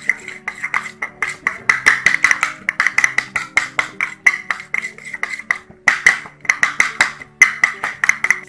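A metal utensil clinking fast against a stainless-steel bowl as raw eggs are beaten, several strokes a second with brief pauses a little before the middle and again later on.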